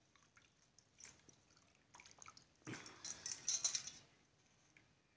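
Hands swishing chopped spinach in water in a steel tray, with scattered light splashes and clicks, then a louder slosh of water and scrape of the metal tray about three seconds in as the tray is lifted.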